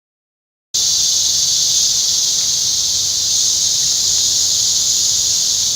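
Rainforest insects droning in a loud, steady, high-pitched chorus that starts suddenly about three-quarters of a second in, with a faint low hum beneath.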